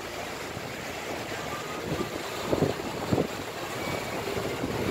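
Open river cruise boat under way: a steady rush of water and wind on the microphone, with a few louder wind buffets in the middle.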